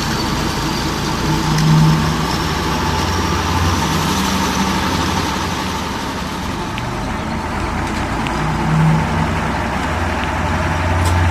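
New Holland tractor's diesel engine running steadily, driving the tubewell pump while the well has yet to deliver water, with a faint high whine rising over the first few seconds.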